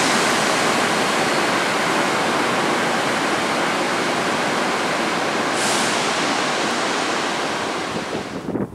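Steady rushing noise of a Renfe Media Distancia passenger train pulling out of a covered station, echoing under the roof, with a short high hiss about halfway through. The sound fades and cuts off near the end.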